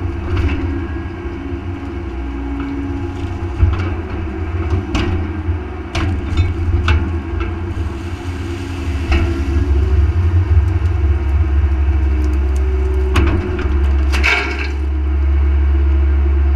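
Mini excavator's diesel engine running steadily as the bucket handles a log, with scattered sharp knocks and wooden cracks as the log is gripped and set down in the mud. The engine gets louder and steadier near the end.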